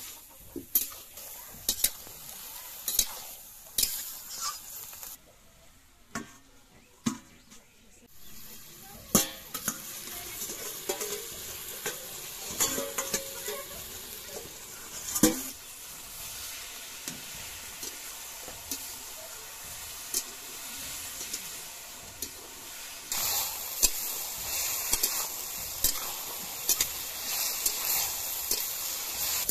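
Mushrooms and brinjal frying in an iron wok, a metal spatula scraping and clanking against the pan with sharp knocks, over a steady sizzle. The sizzle gets louder in the last several seconds.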